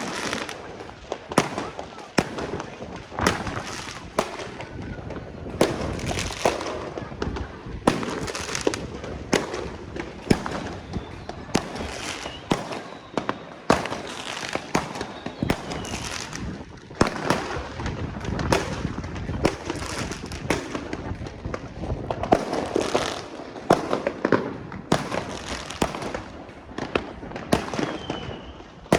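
Fireworks going off continuously: many sharp bangs at irregular intervals, several to the second at times, over a constant crackle, with an occasional faint whistle of a shell going up.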